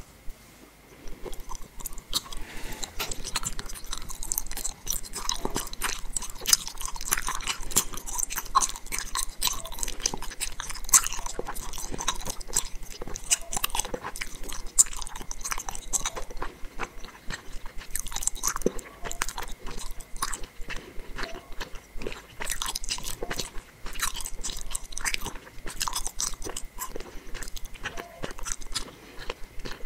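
A person chewing gummy candies with her mouth closed, close to the microphone: a dense, uneven run of small clicks and smacks starting about a second in.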